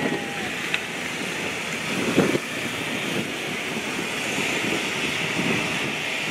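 Side-by-side utility vehicles driving slowly past, a steady engine and tyre noise that grows over the second half, with a short louder noise about two seconds in.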